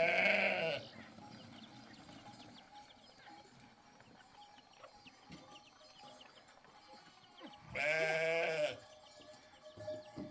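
Two bleats from livestock, one right at the start and one near the end, each lasting about a second with a wavering, quavering pitch.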